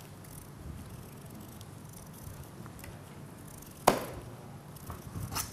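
Knife and chicken breast on a plastic cutting board: one sharp knock on the board about four seconds in, then a few lighter knocks near the end.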